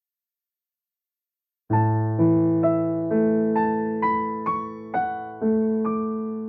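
Nord Stage 3 stage piano playing a layered piano patch. Silent at first; then, a little under two seconds in, a low chord sounds and single notes follow about every half second, climbing in pitch over the held chord. This is the unequalized 'before' version of the sound.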